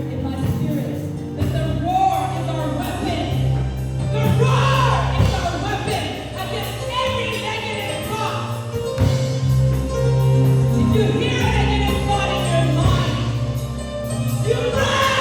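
Live gospel worship music: voices singing over a band, with steady held low notes underneath.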